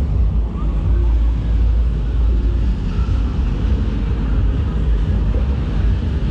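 City street ambience heard while walking: a steady low rumble of traffic, with cars passing at a crossing.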